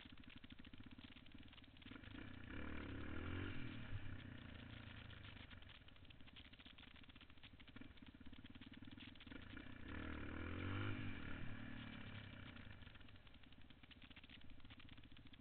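Yamaha XT350's single-cylinder four-stroke engine running while the bike is ridden, with two surges of throttle, about two seconds and ten seconds in, the revs climbing and dropping back as the rider tries to lift the front wheel.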